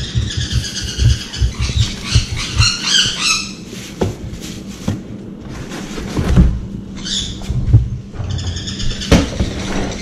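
Wood shavings rustling and spilling as they are scooped from a bag into a plastic pet carrier, with rustling of the bag and a few sharp knocks on the carrier. High-pitched bird calls come in over the handling, mostly in the first few seconds and again near the end.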